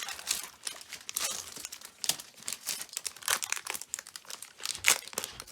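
Foil wrapper of a Pokémon trading card booster pack crinkling and tearing as it is torn open by hand, in quick irregular crackles with one sharp crackle near the end.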